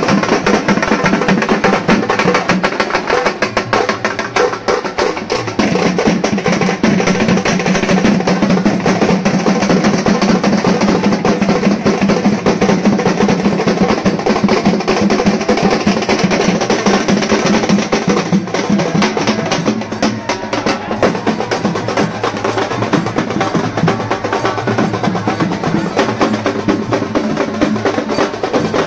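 Dhol and nagada drums beaten together in fast, continuous rolls and strokes, with no pause. A held pitched tone sounds underneath for much of it.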